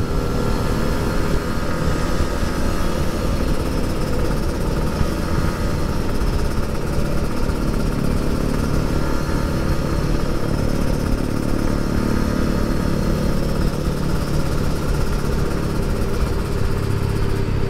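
Two-stroke Kawasaki Ninja RR 150 engine running steadily while riding, with wind rushing on the microphone.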